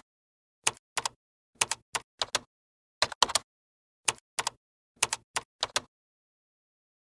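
Sharp clicks in quick, irregular clusters of two or three, like typing, with dead silence between the clusters; they stop about six seconds in.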